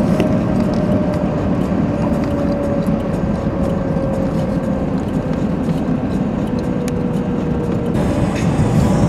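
Car driving along a road: a steady rumble of road and engine noise, with a faint whine that slowly drops in pitch.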